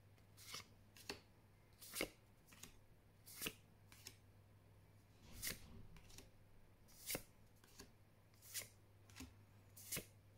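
Magic: The Gathering trading cards being flipped one by one through a hand-held stack, each card sliding off and snapping onto the back of the pile: faint swishes and flicks about once a second, irregularly spaced.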